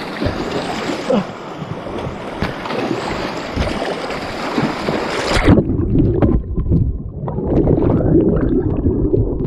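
Whitewater rushing and splashing around a kayak on a river. About halfway through, the sound suddenly turns muffled and low.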